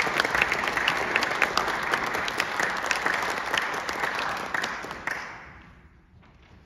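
Audience applauding as the performers take the stage; the clapping dies away about five seconds in.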